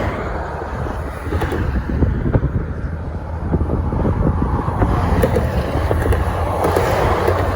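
Heavy wind buffeting the microphone: a steady low rumble with gusts, and a rushing noise that swells and fades, broken by frequent crackles.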